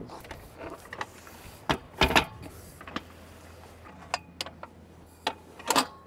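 Metal clicks and clunks from an aluminium whisker pole and its stainless bracket being handled and fitted at the mast, about seven separate knocks with the loudest pair around two seconds in.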